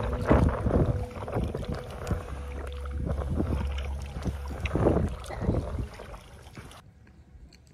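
Kayak paddle blades dipping and splashing in the water, stroke after stroke, with some wind on the microphone; the sound dies away near the end.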